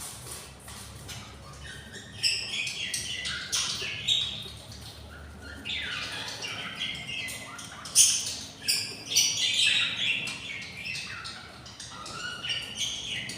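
Budgerigars chirping and squawking in a run of short calls that begins about two seconds in.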